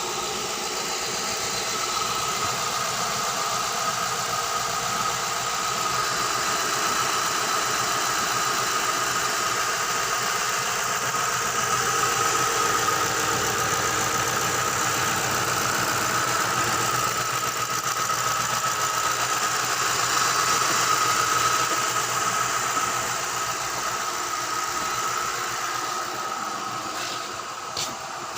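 Car engine running steadily at idle, the engine under diagnosis for a misfire.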